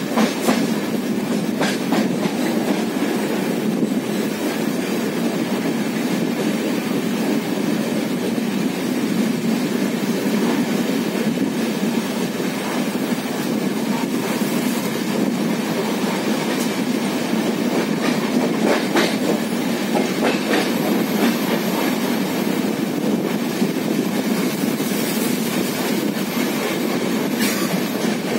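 A passenger train running along the track, heard from aboard: a steady rumble of wheels on rail, with occasional clacks. A faint high whine comes in during the last few seconds.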